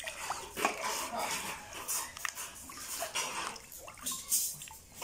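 Water splashing and dripping in a plastic tub as a raw, plucked duck is rinsed and lifted out, in short irregular splashes.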